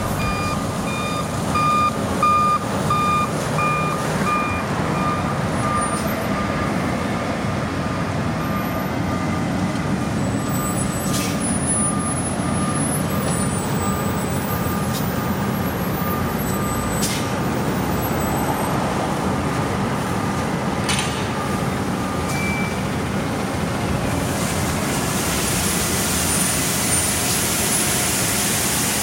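A heavy construction vehicle's backup alarm beeping about twice a second over the steady running of diesel road machinery. The beeps are loudest at first, then fade and stop about two-thirds of the way through, and a high hiss grows near the end.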